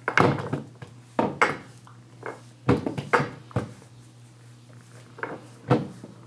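A grooming brush dragged through a Bengal cat's coat in a series of short, irregular strokes, about seven in all, with a lull around four to five seconds in.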